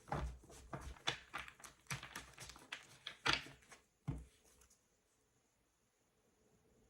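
Tarot cards being handled on a table: a quick run of light taps, clicks and rustles that stops about four seconds in, leaving quiet room tone.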